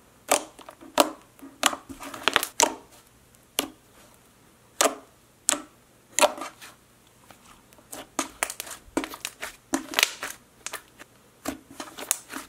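Hands squishing, folding and poking a soft layered clay-and-jelly slime, giving irregular sharp bubble pops and squelches that come faster in the second half.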